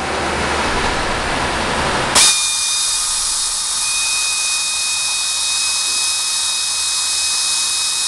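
Cordless drill drilling a hole through the edge of a trike fender. A hissing noise comes first, then about two seconds in a click and a steady high-pitched whine as the drill runs.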